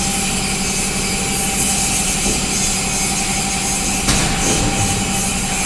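Machinery running steadily, a constant noise with a low hum and a higher steady tone, with one sharp click about four seconds in.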